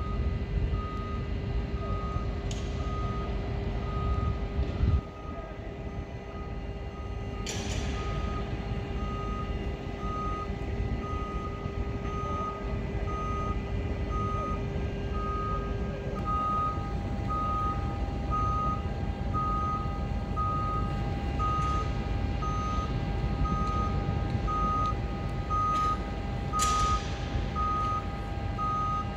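Electric towbarless aircraft tug's warning beeper sounding a single high tone about twice a second while the tug moves, over a low rumble and a steady hum that steps up in pitch about halfway through. A few brief sharp hisses cut in now and then.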